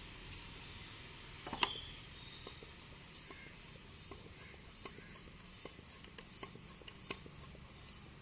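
Air pump being worked to pressurise a water-filled plastic bottle rocket through its valve: rhythmic short hisses of air, about two to three a second, with small ticks, after one sharp click about a second and a half in.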